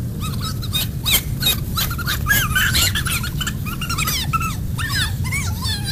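A dog barking rapidly, many short barks in quick succession, over a steady low rumble.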